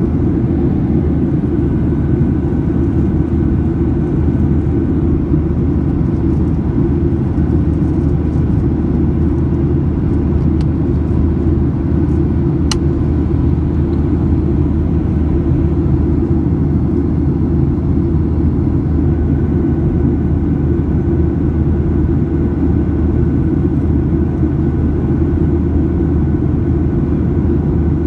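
Boeing 737-800 cabin noise in cruise: the steady low rumble of its CFM56-7B engines and the airflow past the fuselage, with faint steady whines above it. A single brief click comes near the middle.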